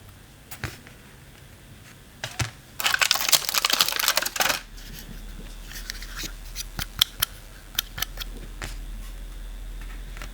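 Plastic parts and packaging of a mini air conditioner being handled: scattered sharp clicks, and a dense crinkling burst lasting about two seconds from roughly three seconds in. A low steady hum starts just after the burst.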